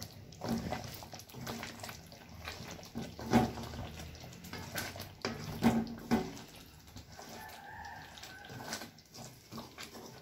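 A spoon knocks and scrapes in a kadai as a chicken curry is stirred. A rooster crows once, about seven seconds in.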